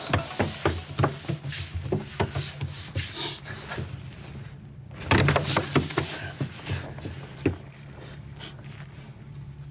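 Scattered small knocks and clicks, with a denser cluster of knocks and rustling about five seconds in, over a faint steady low hum.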